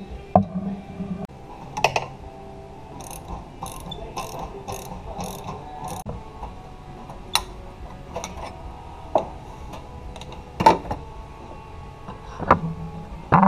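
Metal hand tools working a steel brake line while a bubble flare is being made: a run of quick, evenly spaced clicks, about three a second, for a few seconds, then single sharp metal clicks every second or two.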